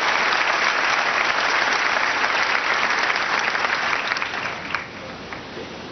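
Large audience applauding, the clapping dying away over the last second or two.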